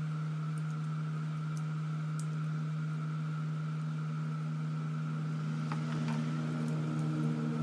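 Steady electric motor hum from a running machine, with a few light clicks and taps near the end.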